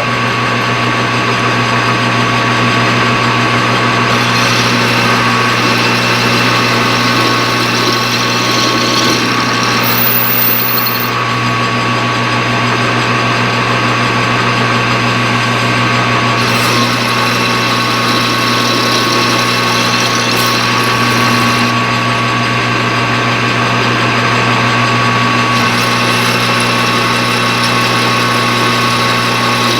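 Metal lathe running steadily with a boring bar cutting inside the workpiece, a constant motor hum under a shifting cutting hiss.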